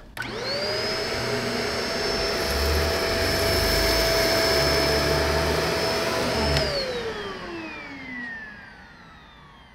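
Shark DuoClean Lift-Away UV850 upright vacuum on its carpet setting: the motor spins up with a quickly rising whine and runs steadily for about six seconds while pushed over soft carpet, then winds down with a falling whine. Its brushroll struggled to get up to proper speed on the soft carpet.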